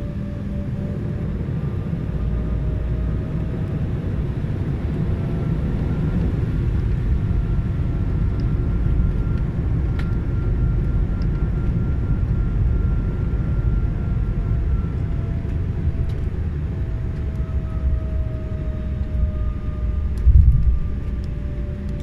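Cabin noise of an Embraer E-190 jet taxiing on the ground: a steady low rumble from its twin turbofan engines and rolling gear, with faint engine tones slowly rising and falling. A brief louder bump comes near the end.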